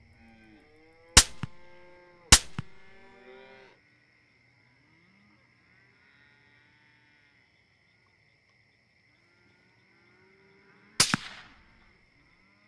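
Three rifle shots: two sharp cracks about a second apart, each followed quickly by a softer second report, and a third near the end. Around the first two shots an animal gives a drawn-out, wavering cry.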